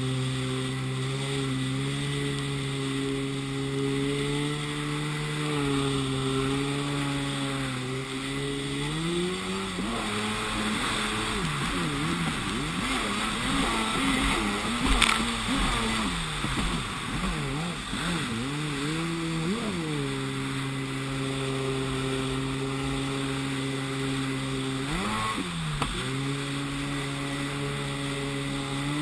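Yamaha WaveBlaster 701 jet ski's two-stroke engine running at a steady cruising pitch. About a third of the way in, it revs up and down repeatedly for around ten seconds, then settles back to steady, with one short rev and drop near the end. Water spray and wind hiss run underneath, and there is one sharp knock about halfway through.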